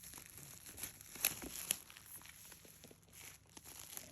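Faint rustling and crinkling of packaging being handled, with a few light clicks and taps.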